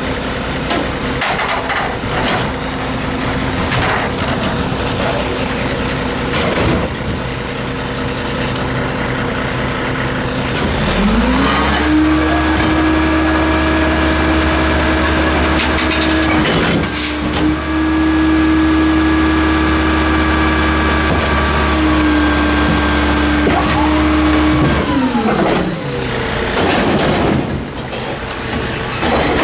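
Diesel engine of a WhiteGMC WXLL rear-load garbage truck idling. About ten seconds in it speeds up smoothly and holds a steady high idle for around fourteen seconds, the usual throttle-up while the body's hydraulics run. It then drops back to idle near the end. Sharp clanks and knocks come and go throughout.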